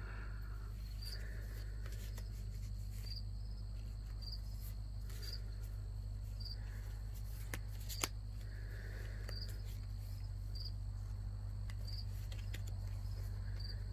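Faint outdoor ambience: short, high chirps repeat about once a second over a steady low hum. A few faint clicks sound in between, the sharpest about eight seconds in.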